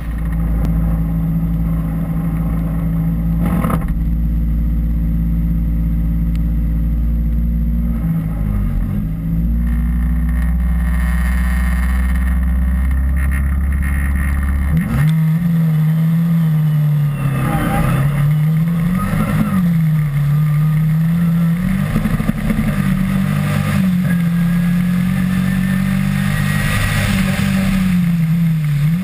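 Rally car engine held at steady revs on the start line, then the car launches about halfway through and accelerates hard, the revs climbing and dropping with each gear change.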